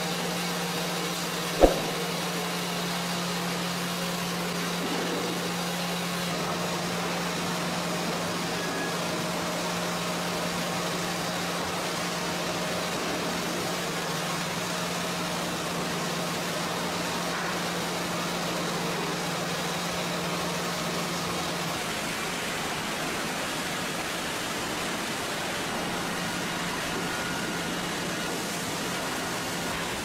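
Sawmill board-handling conveyor machinery running: a steady low hum over a constant hiss, with one sharp knock near the start. The hum stops about two-thirds of the way through, leaving only the hiss.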